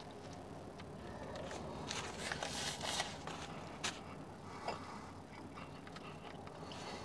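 Foil sandwich wrapper crinkling in the hand, loudest about two to three seconds in, with a few sharp clicks later, over a low steady hum of car-cabin noise.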